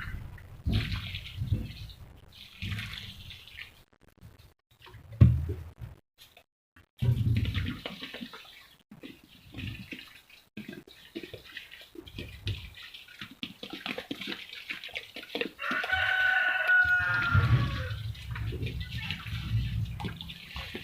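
Water being poured onto soil in spells, with a rooster crowing once, about three-quarters of the way in.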